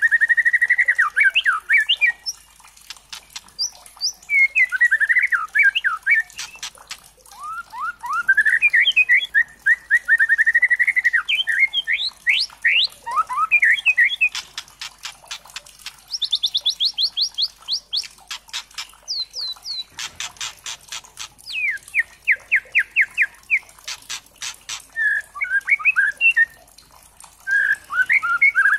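Juvenile white-rumped shama (murai batu trotol) calling: fast trills of rapidly repeated notes broken up by dry, clicking rattles, with short pauses between phrases.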